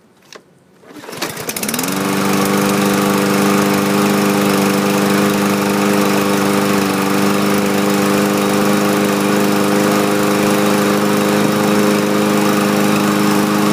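Craftsman M110 push mower's Briggs & Stratton 140cc engine starting about a second in, picking up speed quickly and settling into a steady, even run. It is running smoothly on a main jet bored out to 0.6 mm; the owner calls it "nice smooth RPMs".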